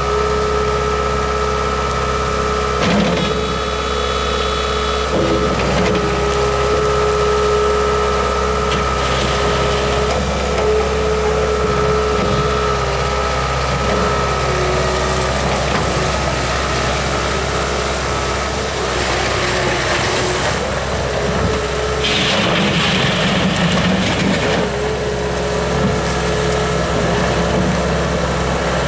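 A Bobcat S630 skid steer loader running, its diesel engine holding a steady note with a sustained whine, and brief changes in load a few times.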